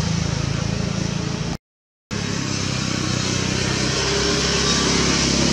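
A steady engine-like hum, cut by a brief total dropout about a second and a half in.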